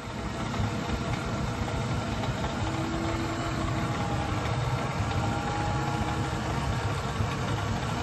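Owens Corning ProCat insulation blowing machine running steadily with a low hum, churning and blowing fiberglass loose-fill insulation.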